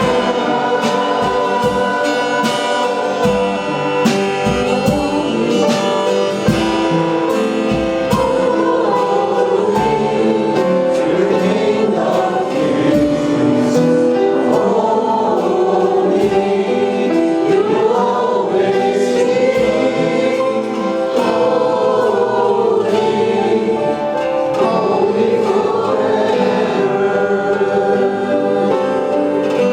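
Gospel worship song: a choir singing over a band with a steady beat.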